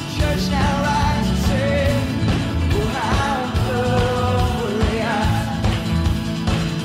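Contemporary worship song played by a band: a lead singer's melody over bass, keys and a steady drum beat.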